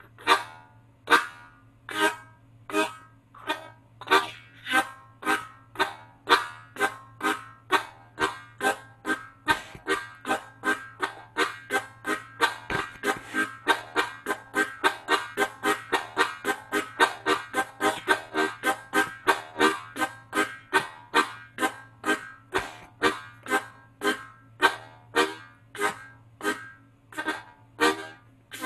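Harmonica train imitation, the chug articulated with the tongue ("tuk-ka") into sharp, crisp puffs with very little sustain. It starts slow, speeds up to a fast, even chug through the middle, and slows down again near the end.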